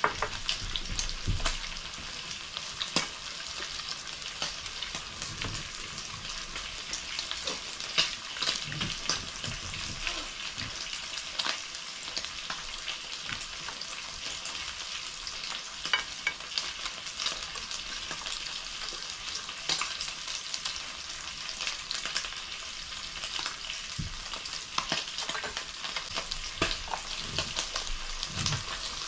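Pieces of meat sizzling on a hot tabletop grill pan, a steady frying hiss with frequent small crackling pops.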